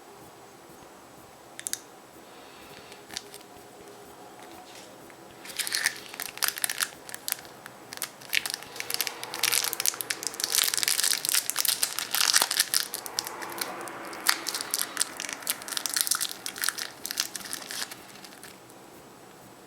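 Foil wrapper of a chocolate surprise egg crinkling as it is unwrapped by hand. A few faint clicks come first, then dense irregular crinkling starts about five seconds in and runs for some twelve seconds before dying away.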